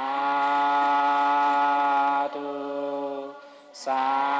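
A congregation of many voices chanting 'sadhu' in unison, the Buddhist acclamation of rejoicing in merit. The first syllable is held long and steady, shifts to the second about two seconds in and fades out, then a new long 'saa' begins near the end.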